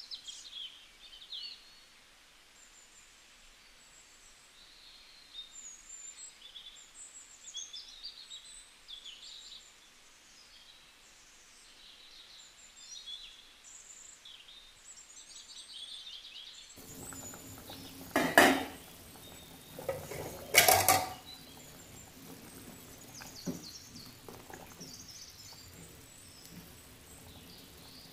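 Small birds chirping in the background throughout. Past the middle the background gets louder, and two loud clatters of a metal utensil against cookware come about two seconds apart, followed by a few lighter knocks.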